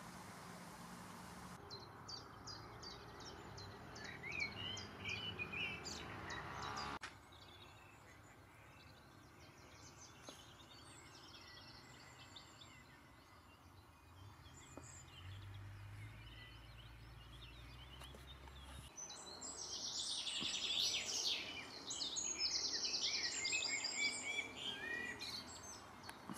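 Wild songbirds singing and chirping over outdoor ambience. Several birds' calls overlap, sparse at first and thickest and loudest over the last several seconds.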